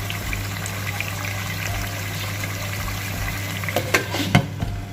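Chicken pieces sizzling steadily in hot oil in a non-stick pan, with a few sharp clatters near the end as the lid is put on.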